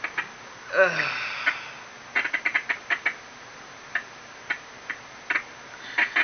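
Handling of a small parcel's packaging: scattered short crackles and clicks. About a second in there is a brief pitched sound that falls in pitch.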